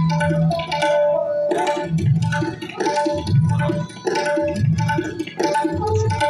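Tabla playing fast, dense stroke patterns, with deep bayan bass strokes coming in clusters every second or so. A sustained melodic line, the sarangi's bowed accompaniment, runs beneath the drumming.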